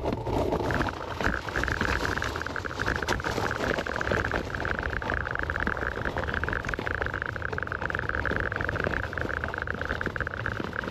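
Small scooter riding along: a steady high motor whine that comes in about a second in and holds, over a fluttering low rumble of wind and road noise.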